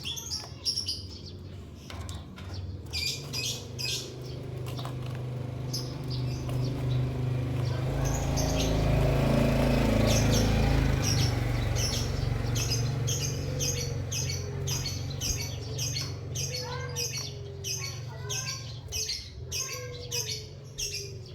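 Small cage birds, a canary and a white-headed munia, giving short high chirps throughout, with a quicker run of chirps near the end. A low rumble swells and fades in the middle.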